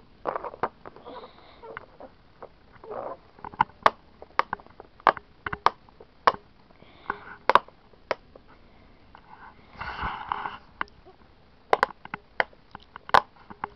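Silicone Pop-It fidget toy being popped by finger: a long run of irregular soft pops as the bubbles are pressed through, at times several a second.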